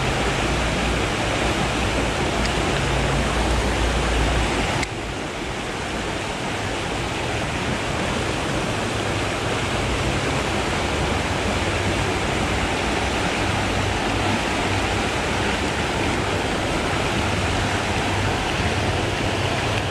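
Steady rush of river water. It drops slightly in level about five seconds in.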